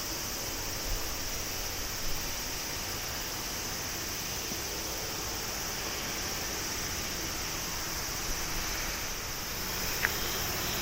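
Steady jet engine noise from an Airbus A350-900's Rolls-Royce Trent XWB engines, an even rushing sound with a faint low hum.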